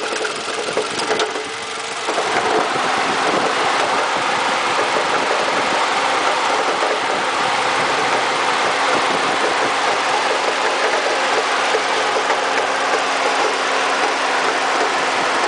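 Toyota 2AZ-FE four-cylinder engine idling with the air conditioning on. About two seconds in, it gets louder and steadier, as with the AC compressor engaging. The owner is chasing a knock from the area of the starter.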